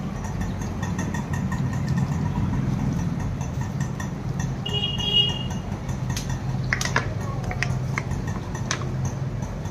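Steady low hum of an idling engine. A short high beep comes about five seconds in, and a few sharp clicks follow soon after.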